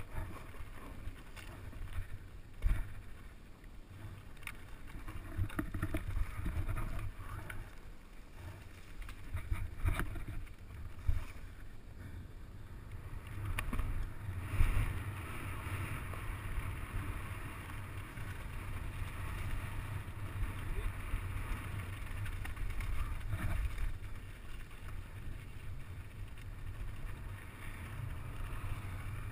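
Wind buffeting the microphone as a mountain bike rides fast down a rough dirt and gravel trail, with the hiss of rolling tyres and scattered knocks and rattles from the bike over bumps.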